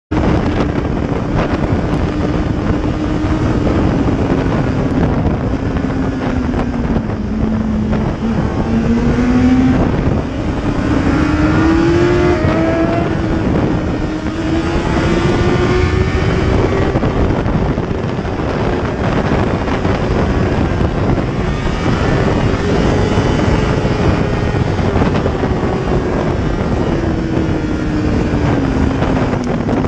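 Sport motorcycle engine running at high revs at speed, its pitch slowly rising and falling as the rider eases off and accelerates, over a steady rush of wind and road noise.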